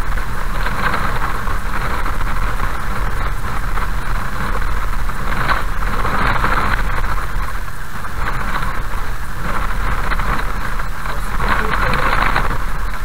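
Car driving slowly on a gravel road, heard from inside: steady engine hum and tyre noise that swells and fades every second or two.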